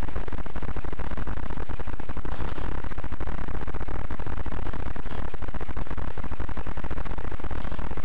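Steady, loud electrical buzz from a helmet camera's microphone, a fault in the mic that masks everything else.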